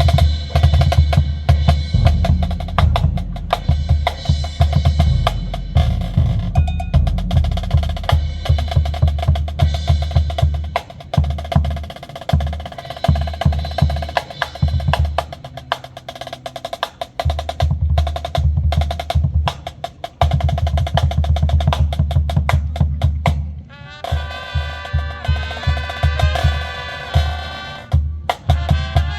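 Marching band drum line playing: rapid snare drum strokes and rolls over low bass drum hits. About 24 seconds in, the brass come in with held chords over the drums.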